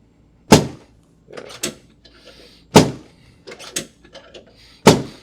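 Chiropractic drop table's section snapping down three times, about two seconds apart, each a loud clack, with quieter clicks and rattles between. They are the thrusts of a pisiform lateral-flexion adjustment at the L4 vertebra.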